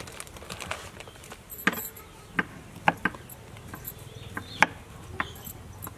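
Kitchen knife slicing through beef meatballs and knocking on a wooden cutting board: several sharp taps at irregular intervals.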